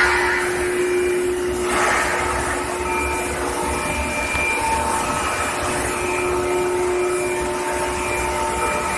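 Electric heating furnace line for carbon steel running: steady machinery hum and hiss with several faint steady whining tones that fade in and out, and a brief swell of hiss about two seconds in.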